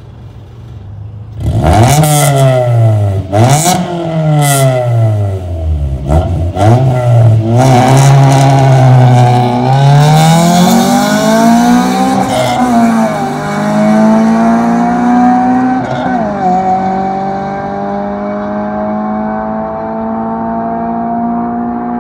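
Honda B16A2 four-cylinder in a 1999 Civic Si, breathing through an aftermarket cat-back exhaust. It revs up and falls back a few times, with a few sharp cracks. The car then pulls away, its note climbing with two short dips at gear changes, and it grows fainter as it drives off.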